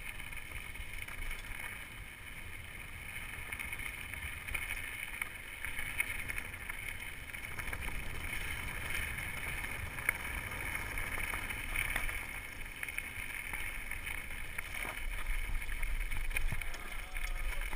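Steady low rumble of wind buffeting a chest-mounted GoPro, with a few sharp clicks and knocks, growing a little louder near the end.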